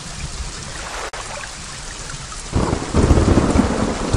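Steady rain falling, with a roll of thunder starting about two and a half seconds in and growing louder. The sound drops out for an instant just after a second in.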